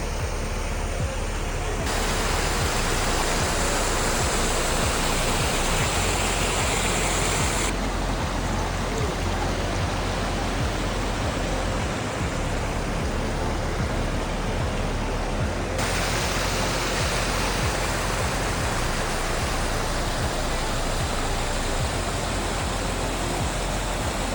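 Steady rushing of flowing water, loud and even, its tone shifting abruptly three times.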